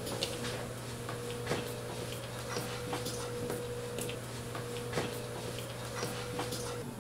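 Footsteps on a hard floor, as light irregular clicks about one or two a second, over a steady low hum and a faint steady whine that stops near the end.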